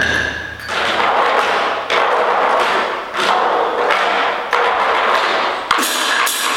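Chinese percussion ensemble playing a run of cymbal crashes, about five strokes a little over a second apart, each with a hissing wash that fades before the next. A steady high ringing tone drops out for this passage and returns near the end.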